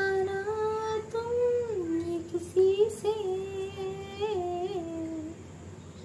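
A voice humming a slow, wavering tune in long held notes, stopping about five seconds in. A couple of faint clicks come near the middle.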